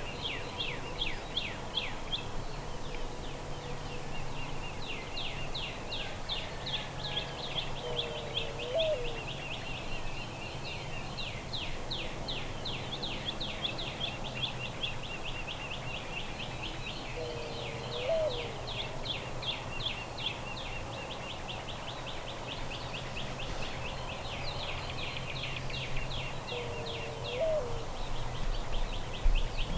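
Birds calling: long runs of fast, high trilling notes, with a lower single call that repeats about every nine seconds.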